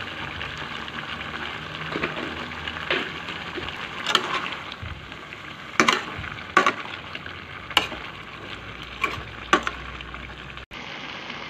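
Chicken gizzards, liver and long beans sizzling in soy sauce in an aluminium pan, stirred with a spatula that knocks and scrapes against the pan in sharp, irregular clacks, about eight of them.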